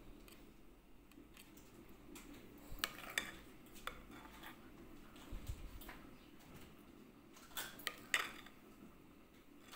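Metal spoon clinking and scraping against stainless-steel ring molds while thick cream filling is spooned in. The light taps come scattered, with a cluster about three seconds in and the loudest ones near the end, plus a dull low bump about halfway.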